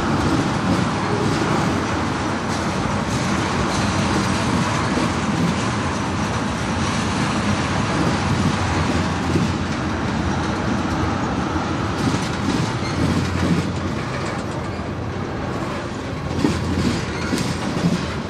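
Freight cars rolling past on the rails in a steady run, wheels clacking over the rail joints, with sharper clacks near the end.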